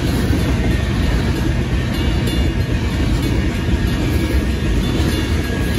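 Freight train of covered grain hopper cars rolling past at close range: a loud, steady rumble of steel wheels on rail.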